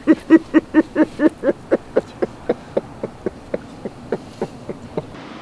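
A man laughing: a long run of rhythmic 'ha' pulses, loud at first, that slow and fade over about five seconds before stopping.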